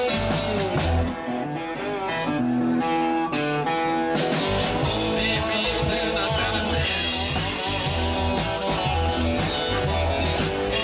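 Live blues band led by two cigar box guitars playing a riff with drums and bass. The bass and drums drop out about a second in, leaving the guitars alone, and the full band comes back in about four seconds in, with cymbals crashing later on.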